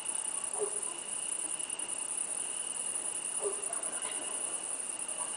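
Crickets chirring steadily, a night-time insect chorus, with two faint short lower calls about half a second and three and a half seconds in.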